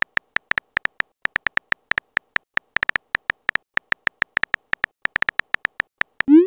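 Texting app's keyboard tap sounds: rapid short, identical tonal clicks, about six a second, as a message is typed letter by letter. Near the end a short rising swoosh, the loudest sound, as the message is sent.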